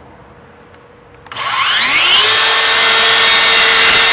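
Makita LS002GZ 40V cordless slide compound mitre saw switched on about a second in: its brushless motor and 216 mm blade spin up with a rising whine, then run steadily at full speed.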